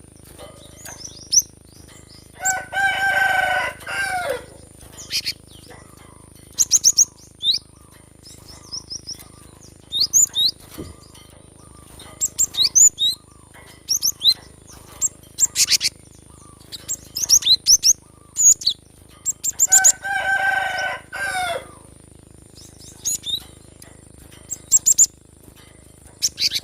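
Cinereous tit (gelatik batu) singing: repeated short, high whistled chirps and phrases throughout. Twice, a longer, lower call with a falling end sounds for about a second and a half.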